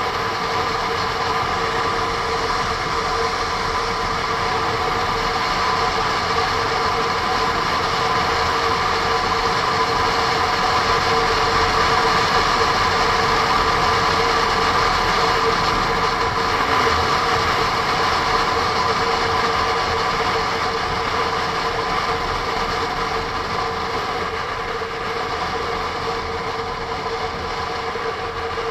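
Honda NC750S DCT motorcycle's parallel-twin engine running at a steady cruise, mixed with wind and road rush on the onboard camera. A steady drone with a few even tones in it, swelling slightly in the middle and easing off near the end.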